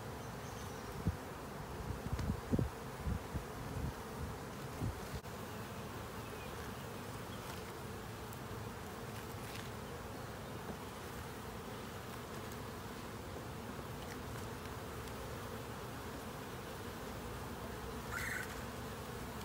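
Honey bee colony humming steadily from an open hive: the low, even buzz of many bees on the frames. A few knocks in the first five seconds.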